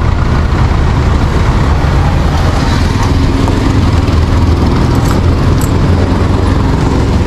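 Steady road traffic noise: a loud, unbroken low rumble of passing vehicles.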